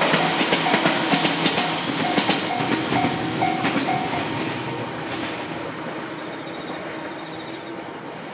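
Train passing a level crossing, its wheels clacking over the rail joints, the sound fading steadily as it moves away. A repeated ding, about twice a second, rings through the first half, typical of the crossing's warning bell.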